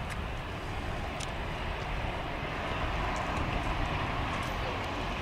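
Airbus A320 jet engines at taxi power, a steady rumble and hiss as the airliner rolls along the taxiway.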